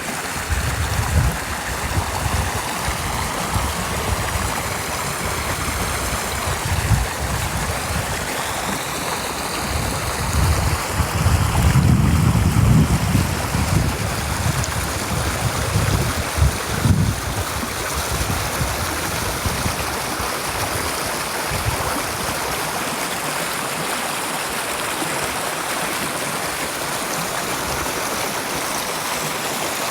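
Water in a stream flowing and splashing steadily. For the first half or so there are irregular low rumbles on top of it, loudest about twelve seconds in.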